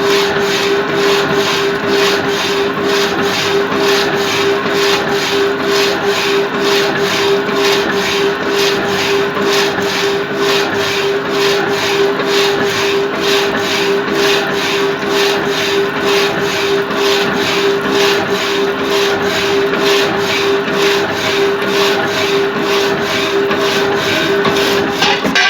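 Reciprocating saw cutting: a steady motor hum under a rasping blade noise that pulses about three times a second, cutting off abruptly at the end.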